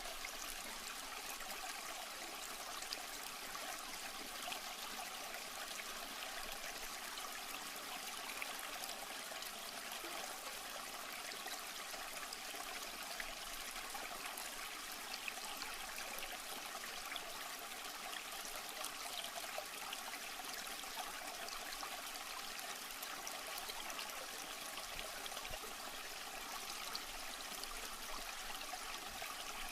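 Aquarium water trickling and splashing steadily, the sound of a filter's return flow falling into the tank.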